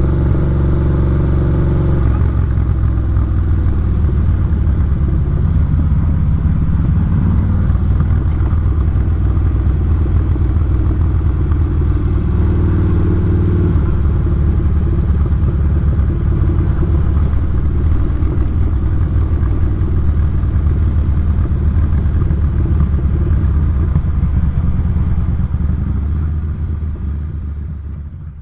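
Yamaha SCR950's air-cooled V-twin engine running on the move, its pitch shifting a few times with speed. The sound fades out near the end.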